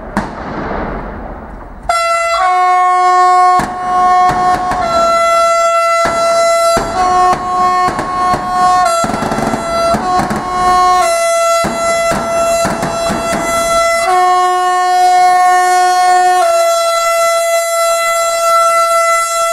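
SNCF double-deck commuter train's horn held on continuously from about two seconds in, its tones switching between chords every second or two. Before it starts there is a hissing crackle with sharp bangs of firecrackers and smoke flares.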